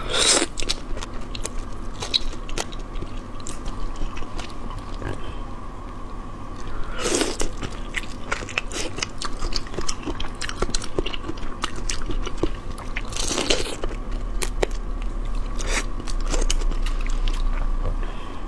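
Close-miked eating of marinated shrimp: biting, crunching and chewing, with crackling clicks as shrimp shells are pulled apart by hand, and a few louder bursts about seven and thirteen seconds in.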